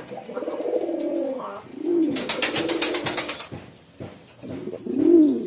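Pigeons cooing: several low, throaty, arching coos, one after another, the last one near the end the loudest. In the middle comes a quick run of sharp clicks, about eight a second.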